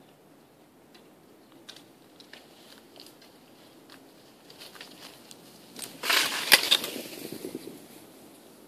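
Snow crunching close to the microphone: scattered faint crackles, then a loud burst of crunching and crackling about six seconds in that lasts about a second and a half.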